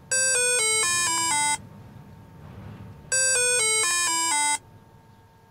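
Agtron ART-260 air seeder monitor's beeper playing a short run of electronic tones that steps down in pitch, twice, about three seconds apart. It sounds as the monitor powers up and finds its sensors.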